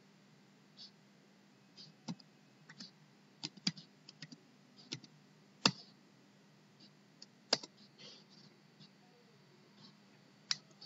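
Scattered clicks of a computer mouse and keyboard, with two louder clicks about six and seven and a half seconds in, over a faint steady hum.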